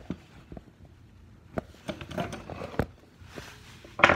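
Handling noise from a phone that is being moved and repositioned: scattered knocks and rubbing, then one loud thump near the end.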